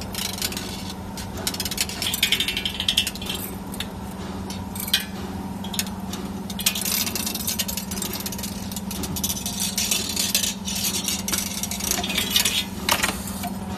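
CNC 3D wire bending machine forming a steel-wire car seat spring: a steady hum with bursts of clicking and rattling as the bending head bends and feeds the wire.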